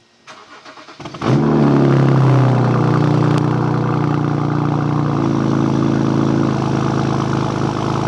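2007 BMW 328i's 3.0-litre inline-six cranking for about a second, then catching with a brief flare of revs and settling to a steady idle, heard at the exhaust tailpipe. It is the first start after a blown ignition coil was replaced to cure a misfire.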